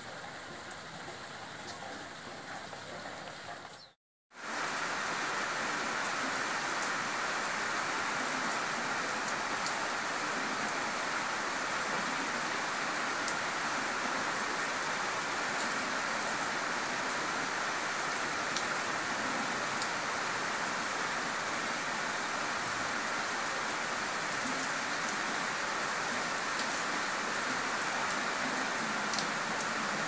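Steady rain, an even hiss of falling water. About four seconds in it cuts out completely for a moment, then returns louder and holds level, with a few faint ticks of single drops.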